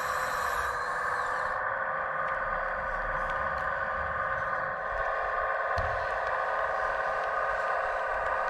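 Model Maeda CC985 tracked crane's electric motors and gearing running with a steady whine; a higher, pitch-shifting whine stops about a second and a half in.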